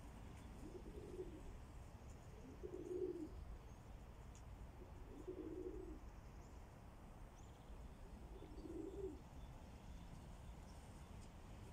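Pigeons in a dovecote cooing: four short, low coos, two to three seconds apart, faint over a steady low background rumble.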